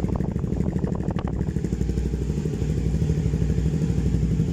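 Kawasaki Ninja 250 parallel-twin engine running steadily at idle through an aftermarket Akrapovic-branded slip-on muffler with its silencer insert removed, giving an open, unbaffled exhaust note.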